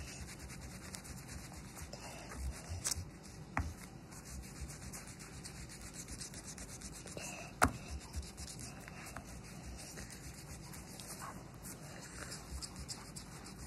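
Eraser rubbing back and forth on a sheet of paper, erasing pencil lines left under the inked drawing, with one sharp tap a little past halfway.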